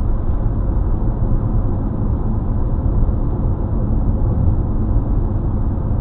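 Steady low rumble of a vehicle cruising at highway speed, heard from inside the cabin: tyre, engine and road noise with no sharp events.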